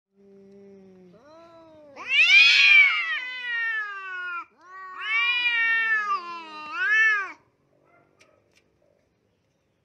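Two domestic cats yowling at each other in a hostile face-off, a threat display before a fight: a low steady moan swells into several long, loud, wavering howls that rise and fall in pitch, then stops about seven seconds in.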